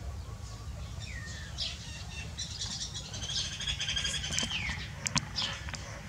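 Small songbirds chirping: short high chirps and quick downward-sliding calls come in rapid runs, thickest in the middle, over a steady low rumble. A couple of sharp clicks come about five seconds in.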